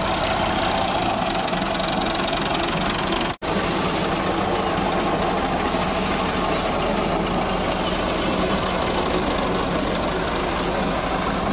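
Massey Ferguson 240 tractor's three-cylinder diesel engine running steadily as the tractor drives over flax straw spread on a tarp to thresh it. The sound cuts out for an instant about three and a half seconds in.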